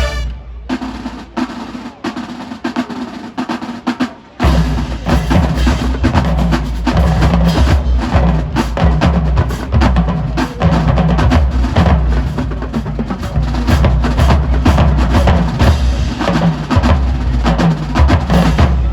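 Marching band drumline playing a percussion break on snare and bass drums. For about the first four seconds there are sparse, quieter sharp strokes; then the bass drums come in heavily under a fast, steady snare rhythm.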